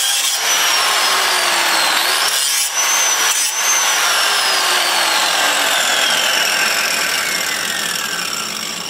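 Angle grinder sharpening the edge of a steel lawn mower blade clamped in a vise, with a loud, steady grinding noise. About three and a half seconds in the grinder comes off the blade and winds down, its whine falling steadily in pitch as the sound fades.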